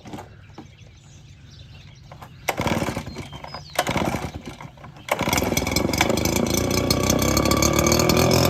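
Lawn mower engine, a stand-on mower's Kawasaki, running faint at first, then louder in uneven spells, and suddenly much louder about five seconds in, where it holds steady with a slowly rising pitch.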